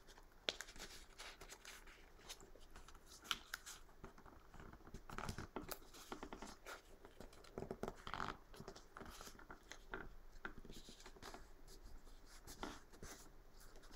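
Faint rustling and scraping of a paper net being folded and its flaps creased by hand, in short irregular rustles.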